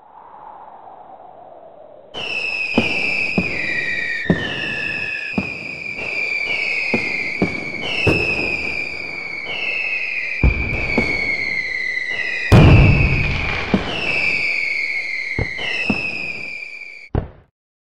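Fireworks sound effects: a string of whistling rockets, each whistle falling in pitch over about a second and overlapping the next, mixed with sharp cracks and two heavy booms. It opens with a quieter, lower falling whistle and cuts off abruptly near the end.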